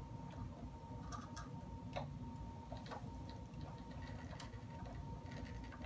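Faint, scattered small clicks and taps from hands handling the animated caged skeleton prop's metal cage, chains and wiring.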